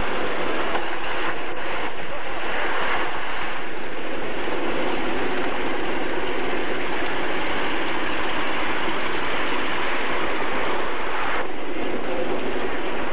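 Loud, steady engine and drivetrain noise of an off-road vehicle, with no clear pitch or rhythm.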